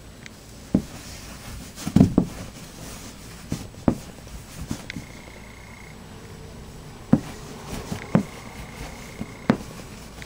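Junobo Scrawler paint stick being written across a whiteboard: a low rubbing rustle broken by about seven sharp knocks and taps at irregular intervals, the loudest about two seconds in.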